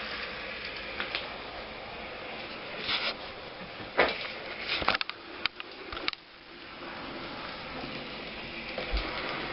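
N-scale model train running on a small layout: a steady whir with a cluster of sharp clicks between about three and six seconds in, then a short dip in level before the whir builds back.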